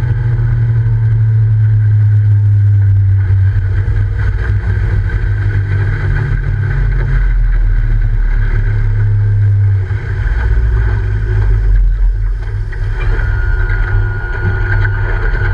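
Evinrude E-TEC two-stroke outboard running under way at speed, with the rush of water from the hull and wake; the engine note shifts lower about halfway through.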